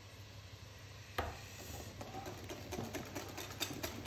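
A single knock about a second in, then a whisk clicking quickly and lightly against a mixing bowl as batter is mixed.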